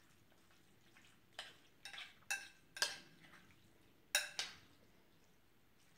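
A spoon stirring a casserole mixture in a ceramic baking dish, knocking and clinking against the dish. There are about six sharp, ringing clinks at uneven intervals, the loudest about halfway and two-thirds of the way through.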